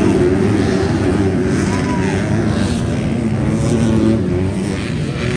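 Motocross bike engines running at race pace, their pitch rising and falling as the riders work the throttle.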